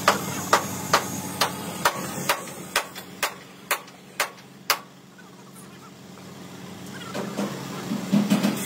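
A hammer striking steel in a steady rhythm, about two blows a second, the blows growing weaker and stopping about five seconds in.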